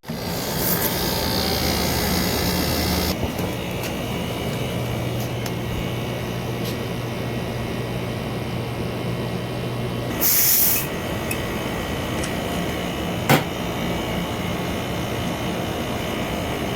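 Window air conditioner running with a steady hum during refrigerant gas charging. A burst of hissing lasts a couple of seconds near the start, a shorter louder hiss comes about ten seconds in, and there is one sharp click near the end.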